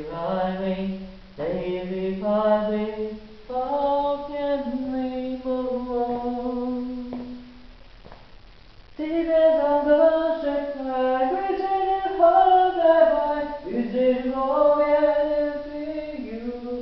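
Unaccompanied singing voice holding slow, long notes with a few rising pitch glides, and a pause of about a second halfway through.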